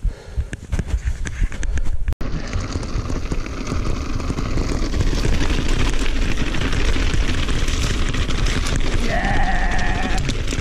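Mountain bike rolling fast over a loose gravel trail: constant tyre noise and bike rattle, with wind buffeting the camera microphone, after a brief dropout about two seconds in. About nine seconds in, a short high squeal lasts about a second.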